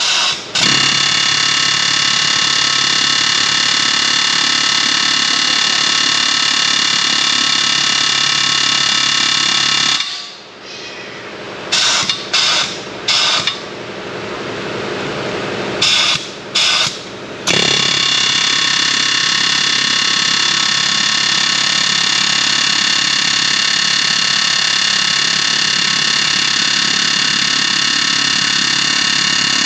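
Pneumatic air hammer running in long steady bursts, driving a tight-seized part out of the front steering knuckle. About ten seconds in it stops and fires in several short blips, then runs steadily again for the rest of the time.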